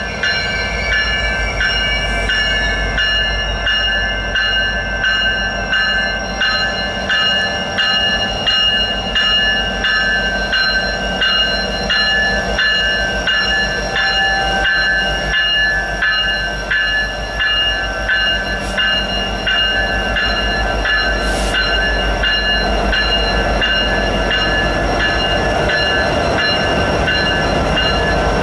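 BNSF diesel locomotives of a freight train rolling past close by, engines running over the rumble and clatter of the wheels. A grade-crossing bell rings in a steady, even rhythm throughout.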